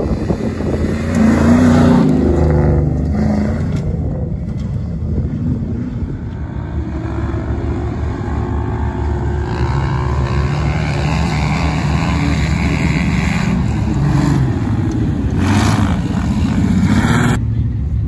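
Engines of off-road vehicles driving and accelerating on sand dunes, the pitch rising and falling as they rev. The sound changes abruptly a few times.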